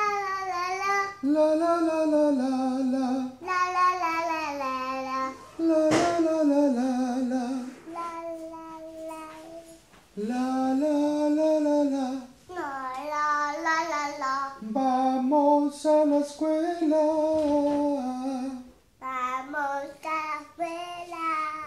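A small girl singing an ornamented melody with a wavering pitch, in phrases broken by short pauses.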